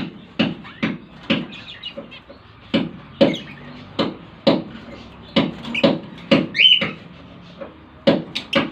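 Irregular knocking, about two knocks a second, with a few short bird chirps between the knocks, one of them a curved call about six and a half seconds in.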